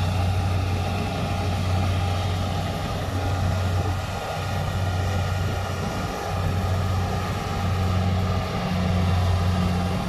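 Rice combine harvester running steadily as it works through the paddy, a constant low engine drone with the rattle and hiss of its harvesting machinery.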